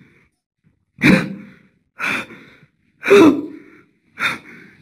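A man's heavy, gasping breaths close to the microphone: four loud breaths about a second apart.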